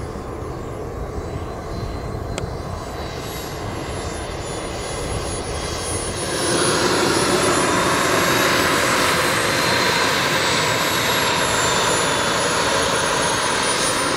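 Small model-jet turbine engine running at low power as the Super Scorpion RC jet taxis on the runway: a steady high whine over a rushing noise, getting clearly louder about six seconds in as the jet rolls close past.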